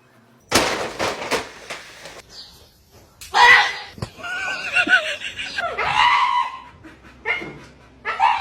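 A short noisy burst, then several wavering, pitch-bending animal calls.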